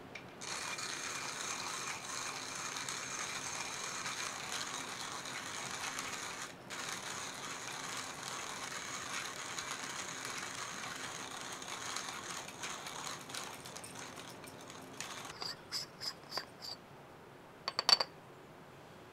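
Hand-cranked coffee grinder grinding beans with a steady crunching whir for about fifteen seconds, with a brief pause about six seconds in. Then come a few light clicks and a sharper metallic knock near the end as the grinder is handled.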